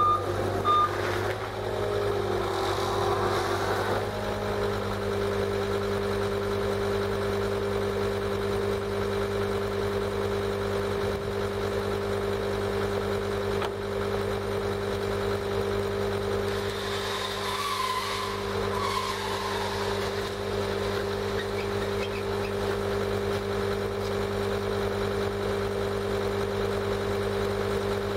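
John Deere compact track loader's diesel engine idling steadily, its backup alarm giving a last short beep in the first second before falling silent.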